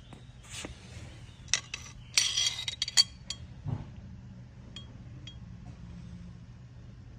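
Metal parts of a dishwasher's rotating rinse-arm assembly clinking and rattling as they are handled: a few sharp clinks, a short clattering rattle about two seconds in, then one sharp clink about three seconds in and a couple of faint ringing ticks.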